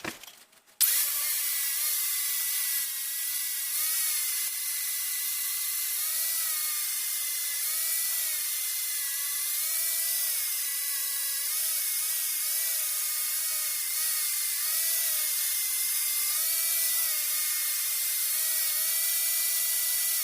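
Angle grinder with a wire wheel brushing the welds on a steel exhaust pipe. It starts suddenly about a second in and runs steadily, its whine dipping and rising again and again as the wheel is pressed to the metal.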